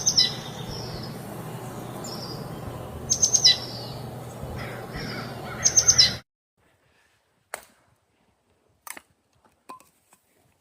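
Songbird calling: three bursts of quick, falling high chirps over a steady outdoor hiss, cutting off abruptly about six seconds in. A few short, faint knocks follow.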